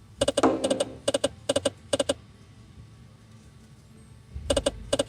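Jungle Wild slot machine sounding short pitched electronic beeps in quick groups of two or three: a cluster in the first two seconds, then a pause, then more near the end.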